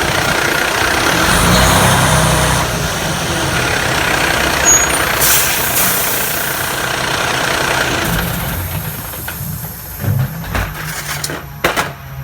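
Heavy truck running, with a steady engine drone under a broad hiss that drops away about eight seconds in. Several short knocks follow near the end.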